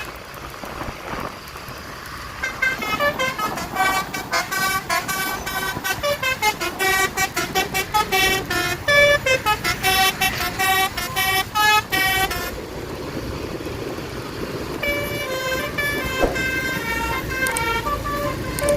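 Tour bus's basuri musical multi-tone horn playing a fast melody of short, repeated pitched notes for about ten seconds, then a second, sparser run of notes near the end, over road and engine noise.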